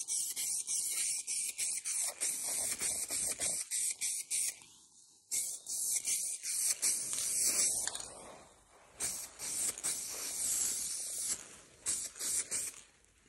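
Aerosol can of clear gloss lacquer spraying: a hiss in a quick series of short bursts, then longer passes with brief pauses between them.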